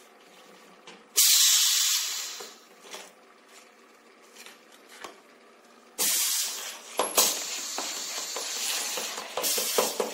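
Pneumatic cylinders on a flap wheel wrapping machine releasing compressed air: a short, loud hiss about a second in that fades away, then a longer hiss from about six seconds, broken by a few sharp metallic clicks.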